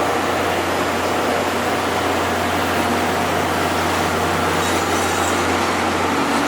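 Steady running noise inside a locomotive-hauled passenger coach: the rumble of the train rolling along the rails with a steady low hum underneath.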